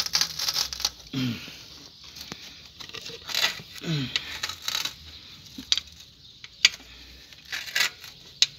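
A screwdriver and hand working against small metal parts on a motorcycle engine: scattered scraping and rustling bursts with a few sharp metal clicks, while a worn bushing is swapped for a new one.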